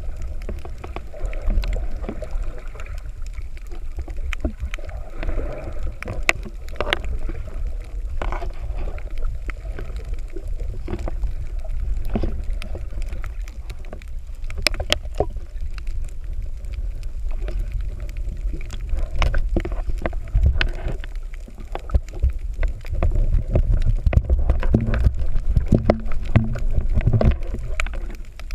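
Underwater sound picked up by a submerged camera: a steady low rumble of moving water, with scattered sharp clicks and taps throughout.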